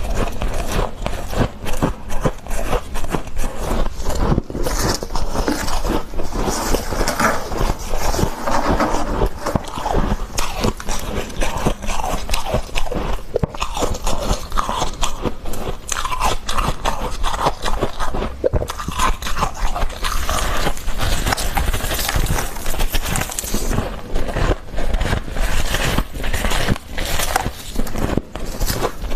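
Close-miked biting and chewing of freezer frost: continuous crisp crunching and crackling.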